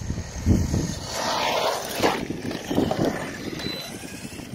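Small radio-controlled cars driving on pavement. Their tyres and motors rise to a brief rush about a second in, among irregular low knocks.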